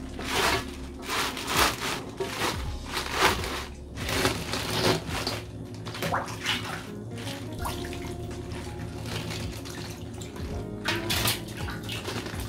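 Water from a kitchen tap running and splashing in a sink, in uneven surges during the first half and then steadier, over background music.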